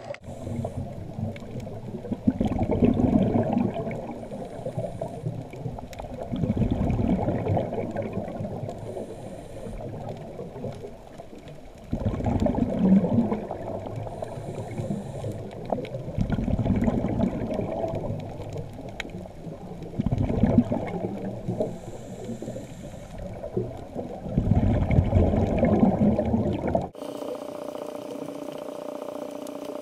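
Muffled underwater sound of a scuba diver's regulator: surges of breathing and exhaled bubbles about every four seconds. Near the end it cuts abruptly to a quieter, steady hum.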